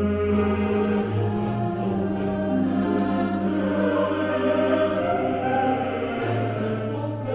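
Choral music: a choir singing slow, held chords over a sustained low bass note that shifts pitch about a second in and again near the end.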